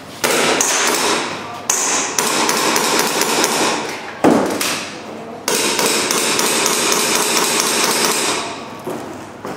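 Airsoft pistol shooting on a competition course: a run of sharp sudden cracks and clicks, some in quick succession, with hard impacts.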